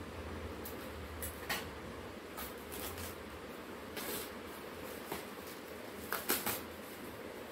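Packaging crinkling and rustling in short irregular bursts as wrapping and tape are pulled off oil-container bottles by hand. The loudest crackles come about six seconds in, over a steady low hum.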